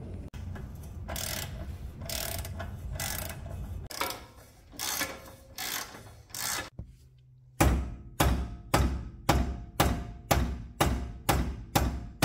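Rasping strokes of a ratchet wrench working a nut on the steering linkage. After a short pause comes a steady run of mallet blows, about two or three a second, on a stuck tie rod end that won't come out of the spindle.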